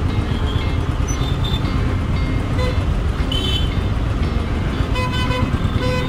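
Royal Enfield single-cylinder motorcycle engine running at low speed in dense traffic, under a steady low rumble. Other vehicles' horns give several short toots, the clearest about five seconds in.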